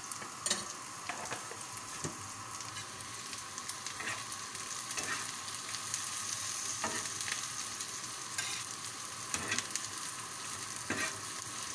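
Chopped onions, green chillies and white cumin seeds sizzling in ghee on a tawa, stirred with a metal spatula that gives scattered scrapes and taps against the pan over the steady frying hiss.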